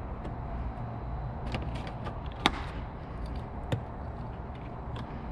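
Plastic car trunk trim being handled and pressed into place: a few short sharp clicks and taps, the loudest about halfway through and another about a second later, over a steady low hum.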